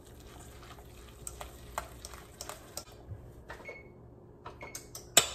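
A metal fork stirring a thick potato filling in a stainless steel mixing bowl: soft scraping with light metal-on-metal clicks. A few louder clinks come near the end.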